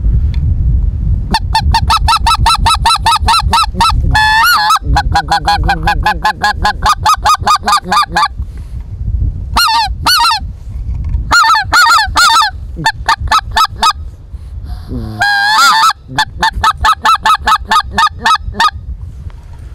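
Hand-held goose call blown in quick runs of short, high honking notes, broken by a couple of longer wavering notes, imitating geese to draw them in.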